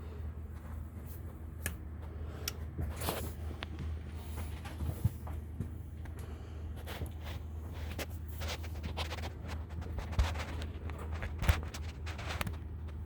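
Footsteps and handling noise: scattered rustles, clicks and a few light knocks over a steady low hum.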